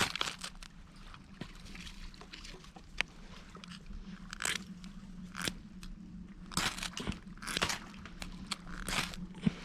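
Ferrocerium fire steel scraped with a striker to throw sparks onto tinder: a series of short, sharp rasping scrapes at irregular intervals, repeated attempts while the tinder has not yet caught.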